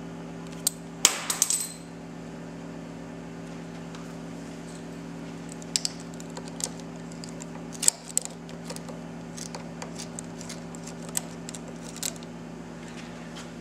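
Ratchet and socket clicking in short, irregular runs of metallic ticks as a 10 mm nut under the clutch lever perch is backed off, over a steady low hum.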